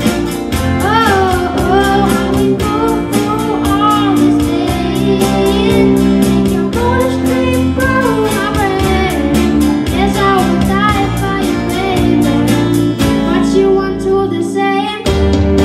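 School pupils' band playing a pop song live: young voices singing over guitar and a steady beat. About two seconds before the end the singing stops and the low end briefly drops out, then the full band comes back in.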